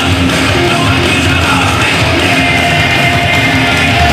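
Loud rock music playing steadily.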